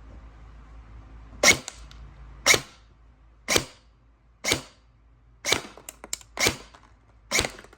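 Double Eagle M906 airsoft electric rifle, still on its stock gearbox parts, firing seven single shots about a second apart in semi-auto, each a sharp crack of the piston and gearbox cycling.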